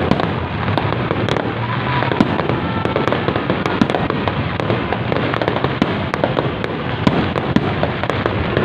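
Fireworks display: aerial shells bursting overhead in a dense, unbroken run of overlapping bangs and crackle.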